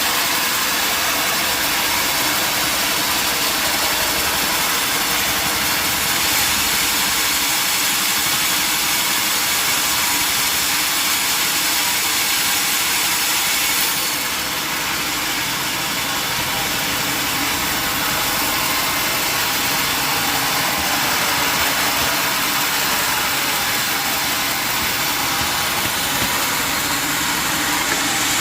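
Sawmill machinery running steadily: a loud, constant mechanical noise with most of its energy in the higher pitches, which shifts slightly about halfway through.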